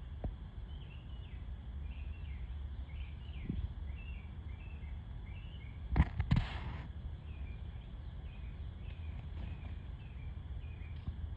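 Outdoor backyard ambience with a faint low rumble and a short high chirp repeated over and over, about one or two a second. About six seconds in, a brief loud rustling scuffle with a couple of thumps.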